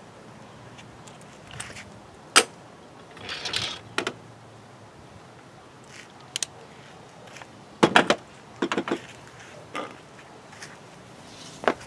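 Scattered sharp clicks and knocks with a short rustle, as of small hard objects being handled; a close group of clicks comes about two thirds of the way through.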